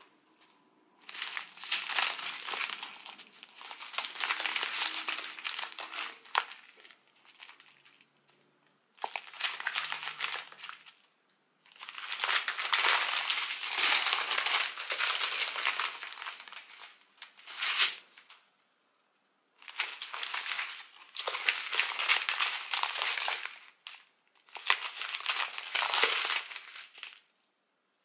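Strips of thin plastic diamond-painting drill packets crinkling as they are handled, in five bursts separated by short pauses.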